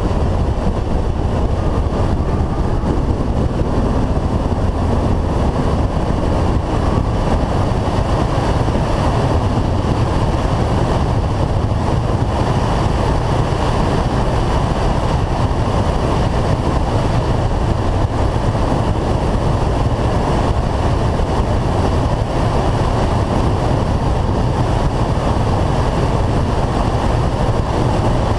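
Wind rushing over a roof-mounted action camera on a Renault Clio 182 at track speed: a steady, low, unbroken rush with the car's running noise underneath.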